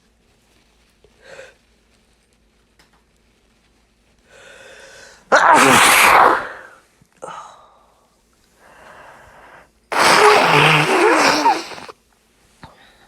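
A person sneezing after dusting: a breathy catching inhale, then a loud sneeze about five seconds in. After another inhale comes a second loud burst lasting about two seconds, near the ten-second mark.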